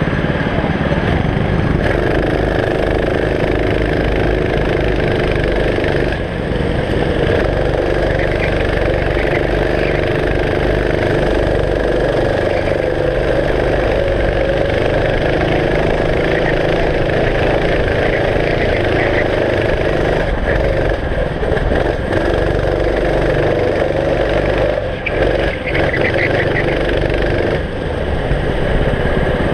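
Go-kart engine heard from the driver's seat, running hard as the kart laps the circuit. The engine note rises and falls, with a few brief drops as the driver eases off.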